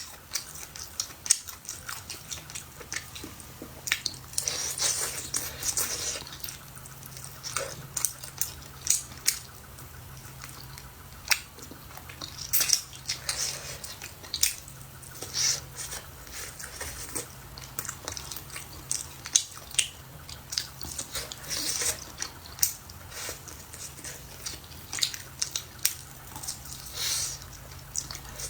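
A person eating: chewing and biting food, with many short, irregular clicks and mouth noises.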